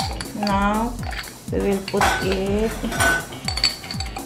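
Metal spoon clinking and scraping against a glass jar and a small ceramic bowl while sauce is spooned out, with two sharp ringing clinks about two and three seconds in. Background music with a steady beat plays underneath.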